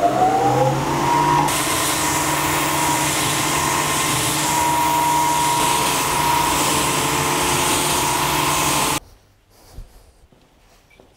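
Long-belt sander running: its motor whine is still rising to speed for the first second, then settles into a steady whine with a hiss that grows louder about a second and a half in as the belt sands wooden boards. The sound cuts off suddenly about nine seconds in.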